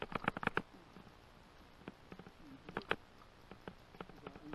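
Quick runs of sharp clicks and taps from unhooking a golden trevally on a plastic kayak deck with pliers and a lip-grip tool: a rapid burst at the start, a few more about three seconds in, and a couple at the end.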